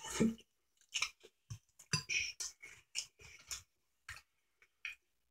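A person slurping up ramen noodles, then chewing with the mouth open: a quick run of wet smacking and clicking sounds that thins out to a few isolated smacks near the end.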